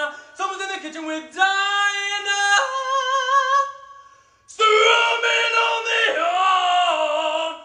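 A man singing high, held notes with vibrato, unaccompanied, with a domestic cat yowling along. The voices stop briefly about four seconds in and start again louder.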